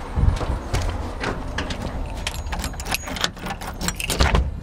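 Keys jangling and a rapid run of metallic clicks and rattles as a front door's deadbolt and knob are unlocked and worked, with a dull bump near the start and another near the end.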